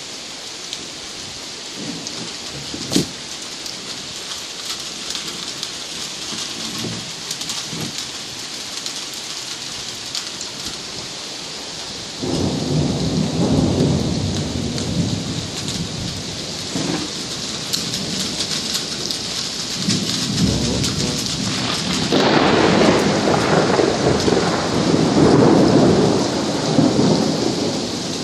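Steady heavy rain with rolling thunder: a single sharp crack about three seconds in, then low rumbles that start suddenly near the middle and come in waves, loudest over the last several seconds.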